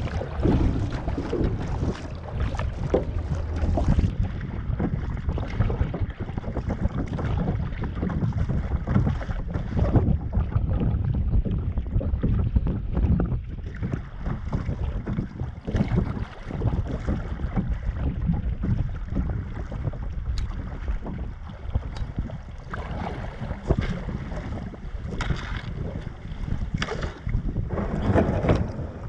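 Wind buffeting the microphone, with the splashes and drips of double-bladed kayak paddles dipping into the water, stroke after stroke.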